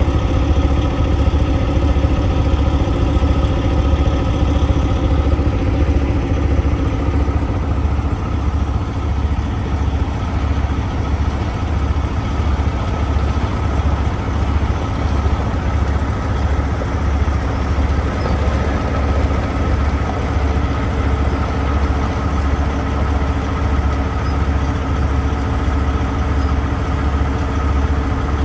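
Heavy diesel engine idling steadily with a low, even hum.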